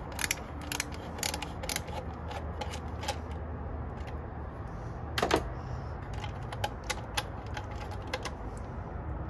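Screwdriver clicking as it loosens a T25 Torx screw on the plastic intake tubing of a BMW N55 engine. Several sharp clicks a second at first, then sparser ones, with one louder click about five seconds in.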